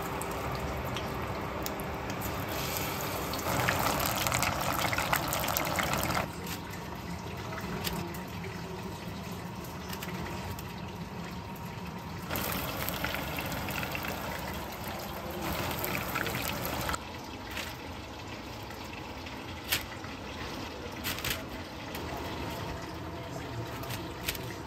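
Hot oil sizzling as battered tempura deep-fries in a pot, a steady hiss that is louder from about three and a half to six seconds in. A few sharp clicks sound near the end.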